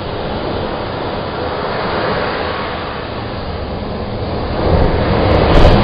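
Loud, steady rushing and rumbling noise with no clear pitch. It swells about four and a half seconds in and then stops abruptly.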